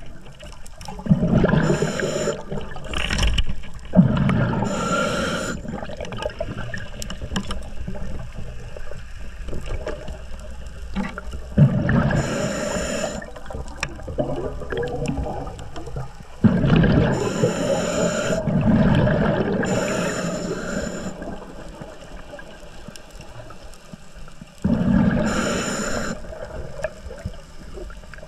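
Water sounds in bursts of bubbling and rushing every few seconds, like bubbles streaming past underwater.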